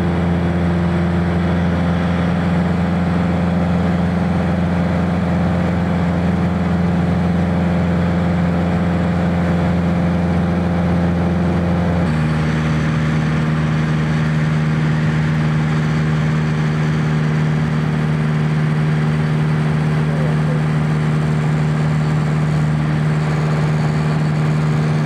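Piper Warrior's four-cylinder Lycoming engine and propeller running steadily in flight, heard from inside the cabin. The pitch steps down slightly and suddenly about halfway through.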